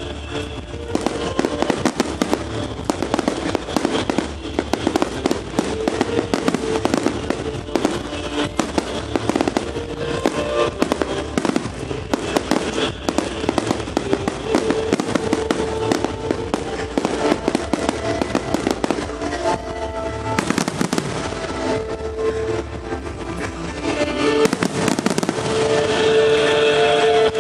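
Aerial fireworks bursting and crackling in a rapid, unbroken barrage, over music with long held notes; the barrage grows louder near the end.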